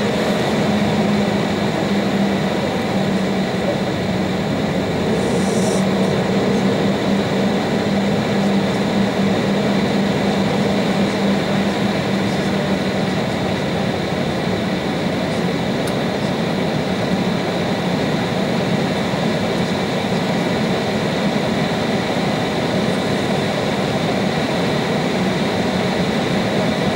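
Steady cabin noise inside an Embraer 190 airliner moving slowly on the ground: its turbofan engines run at low power under the rush of the air conditioning, with a low drone that stops about halfway through and a brief hiss about five seconds in.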